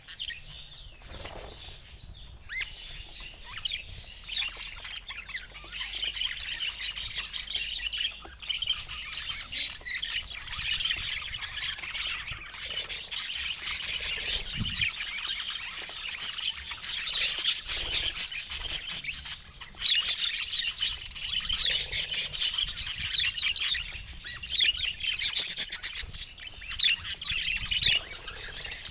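Pet budgerigars chattering and warbling, a dense, continuous run of fast chirps and twitters.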